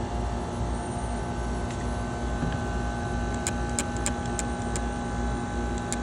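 Air-conditioning equipment running: a steady mechanical hum with several constant tones, with a few faint ticks in the second half.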